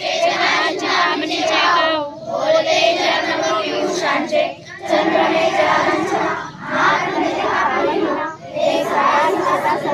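A group of schoolchildren singing together in unison, in phrases with brief breaks between them.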